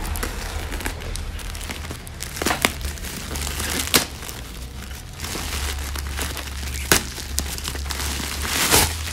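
Plastic shipping bag crinkling and rustling as it is pulled open by hand, with a few sharp crackles of the plastic.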